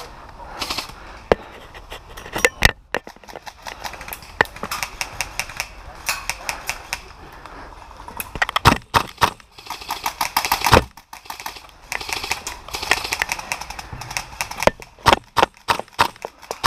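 Airsoft gunfire: sharp pops and cracks, some single and some in quick rapid-fire runs. The heaviest runs come about nine seconds in and again near the end.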